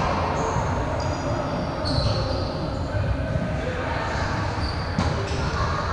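Gym ambience of a volleyball game: a steady low rumble, with sneakers squeaking on the hardwood court several times in the first two seconds or so, and a few faint knocks later.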